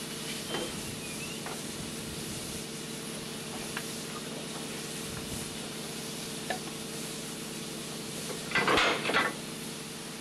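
Wood offcuts being thrown into a steam locomotive's firebox, a wood fire laid to raise steam slowly: scattered knocks of timber on timber and metal, with a louder clatter near the end, over a steady low hum.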